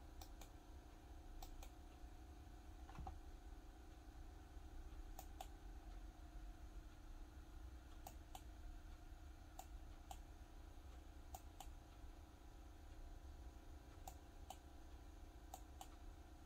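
Faint clicks at a computer, coming every second or few seconds, mostly in pairs a fraction of a second apart, over a low steady hum in near silence.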